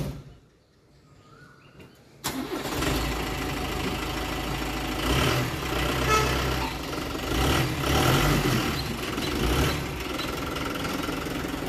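Light truck's engine starting up about two seconds in, then running, its revs rising and falling a few times.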